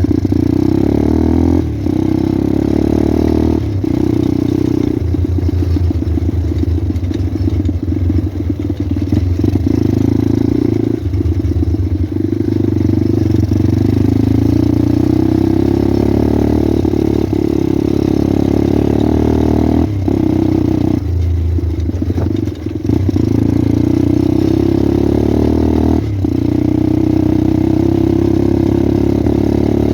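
Pit bike engine running while being ridden, its pitch rising and falling with the throttle, with short drops in revs several times, at about two, four, twenty to twenty-three and twenty-six seconds in.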